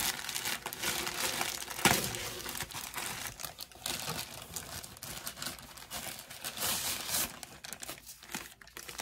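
Packaging crinkling and tearing as a package holding powdered tapioca starch is opened and handled, with a sharp crackle about two seconds in.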